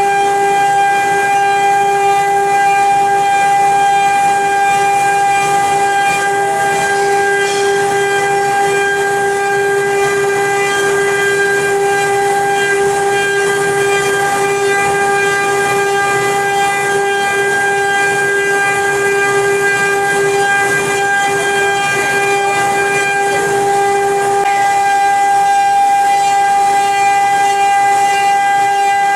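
4D CNC carving machine running, with a steady high whine and a hiss throughout.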